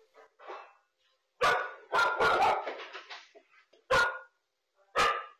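Dog barking in a string of loud, sharp barks starting about a second and a half in, a few in quick succession and then two more spaced apart: an alert bark, as if at a threat.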